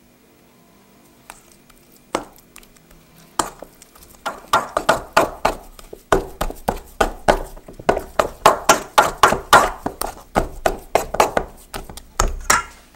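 Soft, oiled yeast dough being kneaded by hand in a stainless steel bowl: a quick, even run of wet slaps, about three a second, starting about four seconds in after a couple of single knocks.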